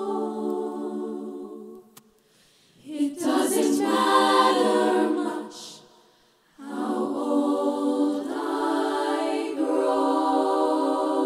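Female vocal ensemble singing close-harmony chords a cappella into microphones. The held chords break off into short silences about two and six seconds in; the middle phrase is the loudest and ends on a hissed consonant.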